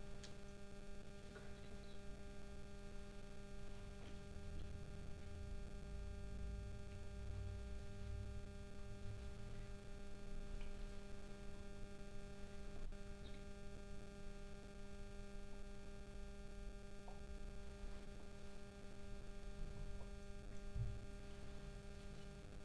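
Steady electrical mains hum with a low rumble that comes and goes, and one faint click about halfway through.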